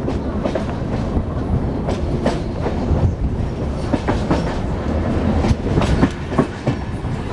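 Passenger train coaches rolling over yard points and rail joints: a steady rumble with irregular clattering knocks from the wheels crossing the switches.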